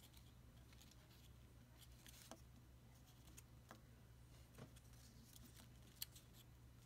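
Near silence with faint paper crinkles and light ticks as a small folded-paper origami bear is handled and set down on a table, over a low steady hum; one sharper click about six seconds in.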